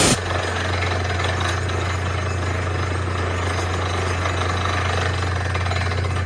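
Borewell drilling rig at work: a steady low engine drone under the continuous rattle of drilling, with a brief louder burst right at the start.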